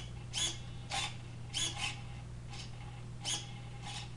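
Steering servo of a Traxxas Slash 4x4 RC truck whirring in short chirps, about eight in four seconds, as the radio's steering wheel is turned back and forth.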